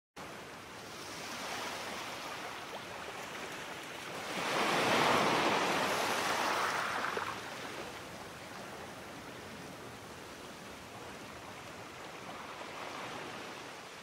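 Sea waves washing in: a steady hiss of surf, with one louder wave surging and breaking about four to seven seconds in.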